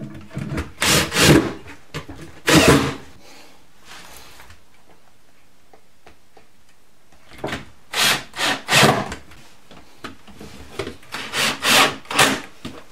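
Wood scraping and rubbing against wood in short strokes, in two bouts with a pause between, as spacer blocks and boards are slid into place inside a wooden kitchen cabinet.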